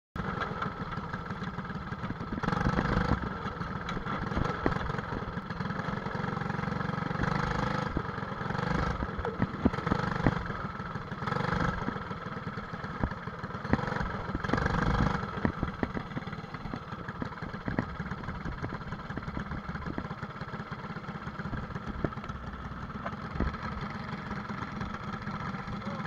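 Briggs & Stratton LO206 single-cylinder four-stroke kart engine heard from onboard, swelling several times in the first fifteen seconds as the throttle opens and closes, then running lower and steadier for the rest.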